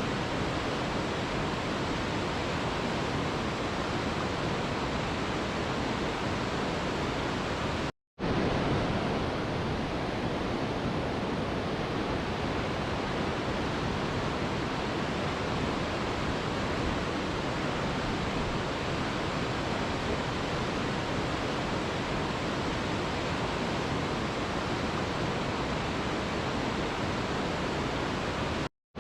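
Steady rushing of a waterfall, an even hiss with no separate splashes. It cuts to silence for a split second about eight seconds in and again near the end.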